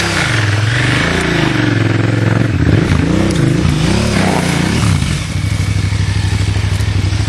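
Adventure motorcycle engine revved up and down several times as the bike is worked through rough off-road ground, then settling to a steady idle about five seconds in.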